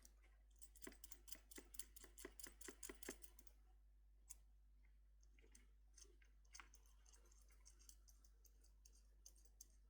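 Faint small clicks and taps of a small plastic-and-metal connector being handled, a quick run of them in the first three seconds or so, then only a few scattered clicks.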